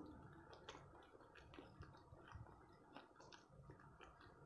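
Faint, irregular wet clicks and smacks of a mouth chewing sticky braised beef tendon.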